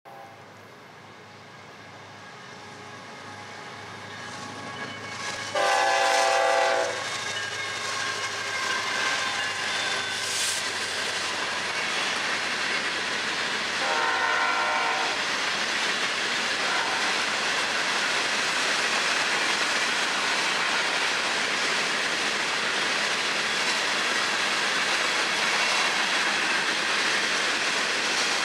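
Florida East Coast Railway freight train approaching, growing louder over the first few seconds. The locomotive air horn sounds loudly for about a second some six seconds in, and again more faintly for about a second near the middle. After that comes the steady sound of a long string of hopper cars rolling past on steel wheels.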